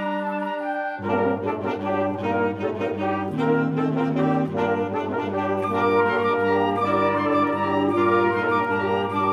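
Instrumental ensemble playing an arrangement from a medley of traditional Christmas carols, in sustained chords. A low bass line and busier moving parts come in about a second in.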